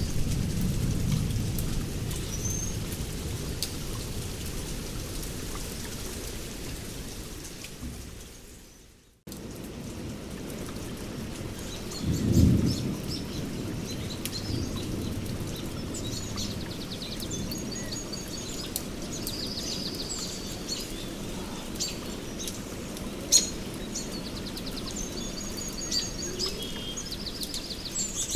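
Rain falling with a thunder rumble that fades away over the first nine seconds and cuts off briefly. Then steady rain, a short rumble of thunder about twelve seconds in, and birds calling with high chirps and quick trills through the second half.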